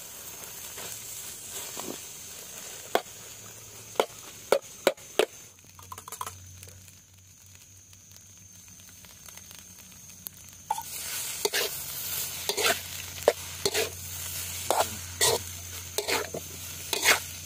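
Metal spatula scraping and knocking against a steel wok as rice is stir-fried, over a steady sizzle. The strokes come sparse at first and turn quicker and busier in the second half.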